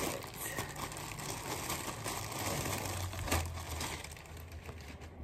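Packaging crinkling and rustling as a cardigan is unwrapped, a dense run of small crackles that eases off near the end.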